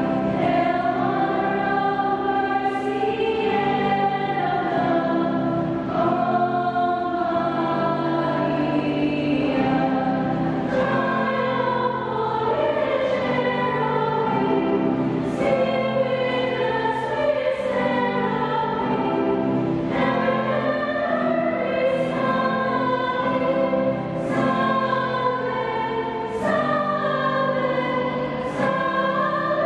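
Women's choir singing together, long held notes moving from pitch to pitch without a break.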